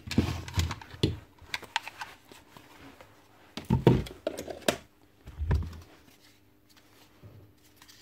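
Plastic clatter and knocks of cordless-clipper parts being handled on a workbench: the battery charger and battery pack picked up and moved. Several knocks in the first six seconds, the loudest about four seconds in, then it goes quiet.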